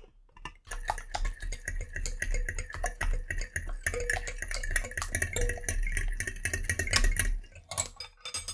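Electric hand mixer running on low, its steel beaters ticking rapidly against a glass bowl as they stir egg mixture over a steady low motor hum. It stops about a second before the end, leaving a few stray clinks.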